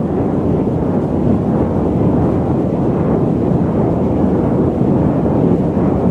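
Loud, steady static noise: an even, rushing hiss weighted toward the low and middle range, with no tone or rhythm in it.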